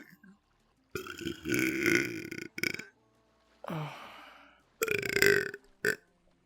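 A person belching repeatedly: a long belch about a second in, a weaker belch that falls in pitch near the middle, and another strong belch about five seconds in, each of the strong ones followed by a short catch.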